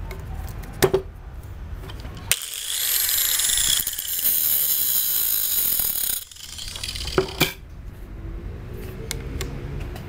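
Angle grinder with a thin disc grinding a chainsaw chain's cutters on the bar: a high, hissing grind for about four seconds from about two seconds in, which stops suddenly. Before and after it, clicks and knocks of the chain being pulled round the bar by hand.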